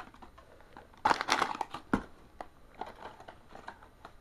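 Blind-box packaging being handled and crinkled by hand: a burst of crinkling about a second in, a sharp tap just after, then lighter rustles.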